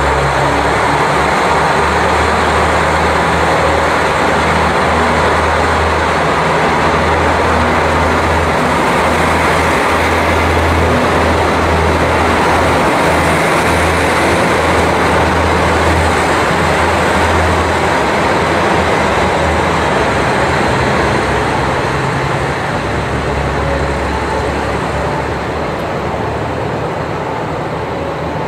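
KiHa 40 series diesel railcar pulling away from a station: its diesel engine running hard under load as it accelerates past with a steady low throb and running noise, fading over the last several seconds as the train moves off.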